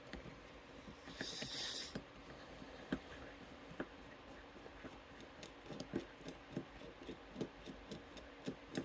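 A screw being worked out of a Zarker A40 padlock with a small screwdriver: faint scraping and irregular small metal clicks, with a brief hiss about a second in.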